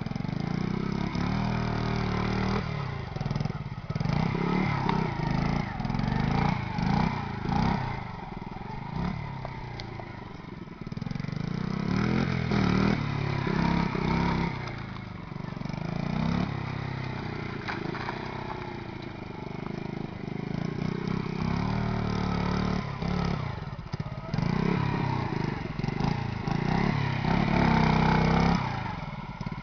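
Honda Monkey 50 minibike's small single-cylinder four-stroke engine revving up and falling back again and again as it is ridden over dirt. It is loudest on the climbs.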